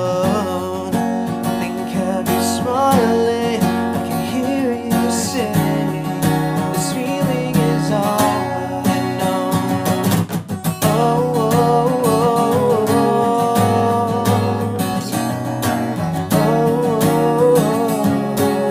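A man singing to his own strummed acoustic guitar, with a short break in the playing about halfway through.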